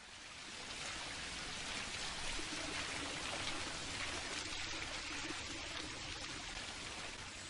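Steady rushing-water ambience, an even hiss like rain or a stream, fading in over the first second and then holding steady.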